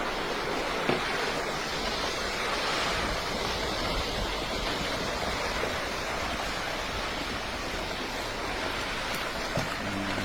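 Steady, even rushing noise of a landslide, a mountainside collapsing and sliding down.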